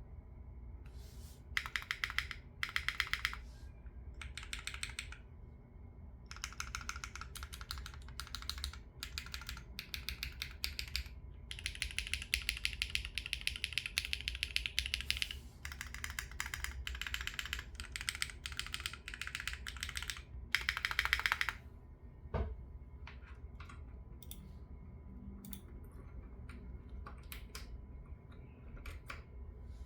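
Typing on a foamless Neo60 Core mechanical keyboard with GearPod Crepe linear switches and an FR4 plate: fast runs of keystrokes in bursts for most of the time, then slower single key presses with one deeper thud about three quarters of the way through.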